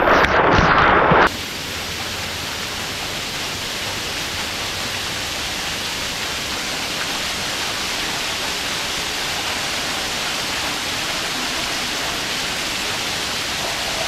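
Falling water of a hot-spring waterfall pouring over rock: loud and close with spray at first, then dropping suddenly about a second in to a steady, even rush.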